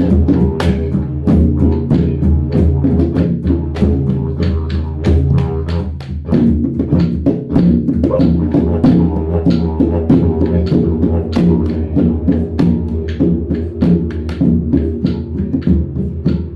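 Didgeridoo holding a steady low drone while shaman frame drums are beaten in a fast, even rhythm over it.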